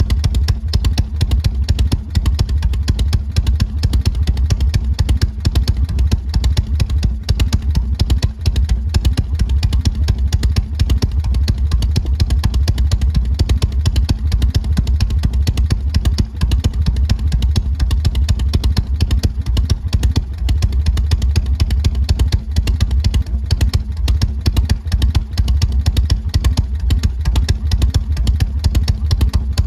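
Harley-Davidson Shovelhead V-twin engine running steadily through its exhaust, a fast, even train of low pulses with no revving or change in speed.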